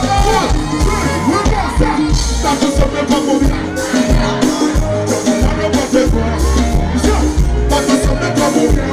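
Live band music from a stage: drums and bass keeping a steady beat under sustained instrument notes, with a singer's voice heard about the start.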